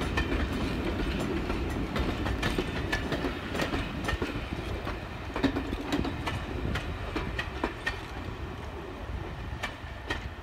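Passenger coaches of a steam-hauled train rolling past, a steady rumble with the wheels clicking over rail joints, growing fainter as the train pulls away.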